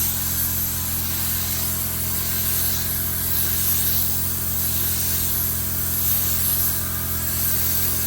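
Automotive paint spray gun hissing steadily as it sprays paint onto a car body, over a steady motor hum.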